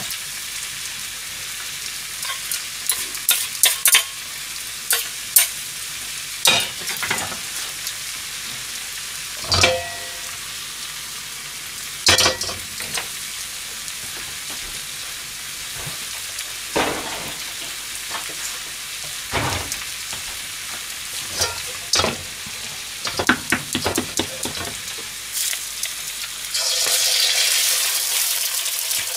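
Hiroshima-style okonomiyaki sizzling steadily in a pan, with scattered clicks and knocks of a utensil against the pan. Near the end an egg cracked into the hot oiled iron pan sets off a louder sizzle.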